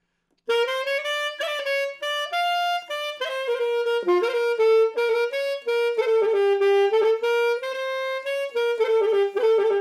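Solo saxophone playing a phrase of a melody, one note after another, mostly short notes with a few held ones, starting about half a second in.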